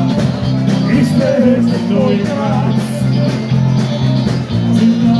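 Live band playing amplified pop-rock in a festival tent: a steady drum beat, bass and keyboards under a sung melody.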